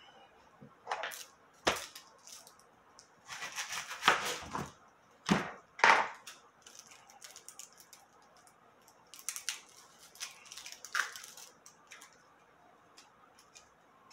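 Dry, papery skin of a red onion being peeled off by hand, crackling and crinkling in irregular bursts, the loudest a few seconds in.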